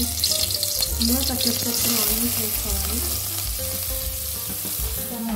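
Chopped onions dropped into hot oil in a metal pot, bursting into a sizzle the instant they hit the oil and then frying steadily.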